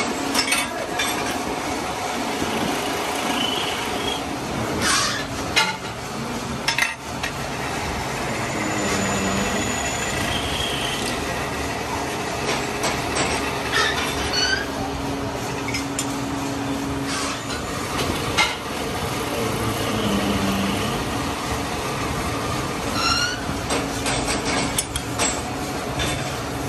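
Metal lathe running while machining steel truck wheel nuts: a steady machine drone with thin whining tones. Over it come a few short rising squeaks and scattered sharp metallic clinks.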